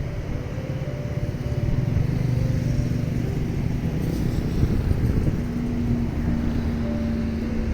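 Steady low engine rumble with a faint steady hum.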